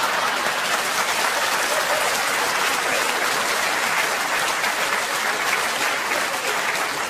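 Audience applauding: a dense, steady clapping from a large crowd.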